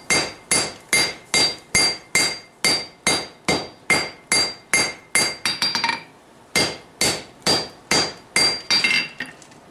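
A three-pound hammer strikes a hot forge-welded steel billet on an anvil in a steady rhythm of about three blows a second, each blow ringing off the anvil. About five seconds in come a few lighter, quicker taps and a short pause. The blows then resume and stop near the end.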